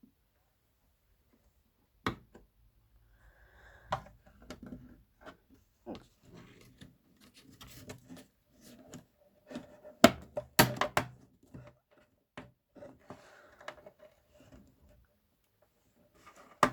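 Irregular clicks, taps and knocks from hands and tools working on a subwoofer's enclosure during disassembly, with a cluster of louder knocks about ten seconds in.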